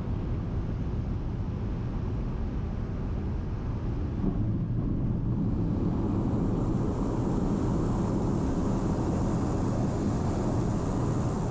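Steady drone of an airplane's engines and airflow heard inside the passenger cabin in flight, a deep rumble with a low hum. It grows slightly louder about four seconds in, and a thin high whine joins it soon after.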